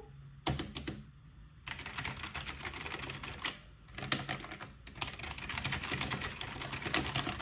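Keys of a new mechanical keyboard typed on rapidly in several runs of quick clicks, with short pauses between them.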